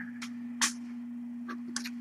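A steady hum on one pitch, with a few short clicks: a louder tap about half a second in and a quick pair of faint ticks near the end.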